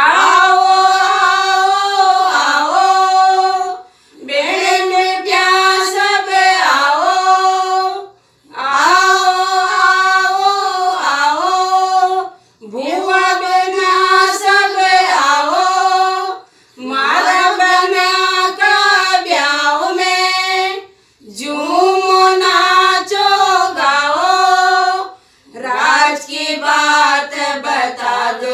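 A group of women singing a Hindi banna-banni wedding folk song together, unaccompanied. It comes in sung phrases of about four seconds, with short breaks for breath between them.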